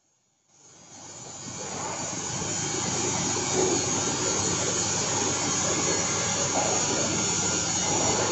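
Steady, loud industrial machinery noise in a machine shop. It rises out of near silence over the first two seconds, then holds even.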